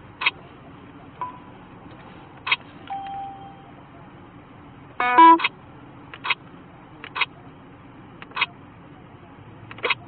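Electronic sounds inside a police patrol car's cabin: sharp single clicks at irregular one-to-one-and-a-half-second intervals and two short beeps, then about halfway a brief, loud burst of electronic tones. A steady low hum runs underneath.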